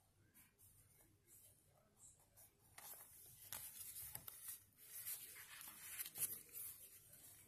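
Paper pages of a small sticker book being leafed through by hand: soft rustles and quick page flicks, faint, growing busier from about three seconds in.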